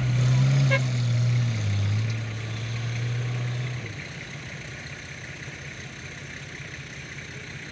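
Nissan Patrol 4x4's engine held at high, steady revs as it struggles on a steep sand slope, dipping slightly in pitch about two seconds in, then dropping away about four seconds in to a quieter steady background.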